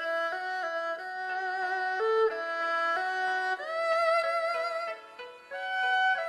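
Background music: a solo bowed-string melody in quick stepwise notes, then a longer wavering note that fades briefly about five seconds in before the tune resumes.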